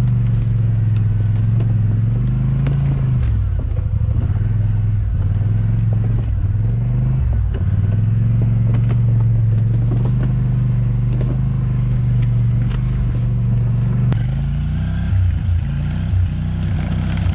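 Four-wheeler (ATV) engine running, its pitch dipping and rising several times as the throttle changes, climbing near the end. Scattered sharp clicks and knocks sound over it.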